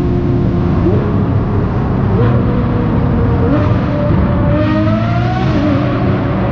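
Racing engines running hard and accelerating, their pitch climbing, dropping back and climbing again several times, with more than one engine heard at once.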